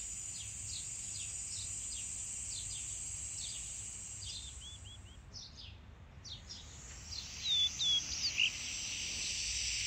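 Outdoor ambience: small birds chirping now and then over a steady, high-pitched insect drone, with a few louder chirps in quick succession near the end.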